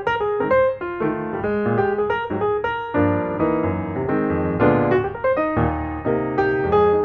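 Background piano music, a steady run of notes with a fuller, lower-pitched passage from about three seconds in.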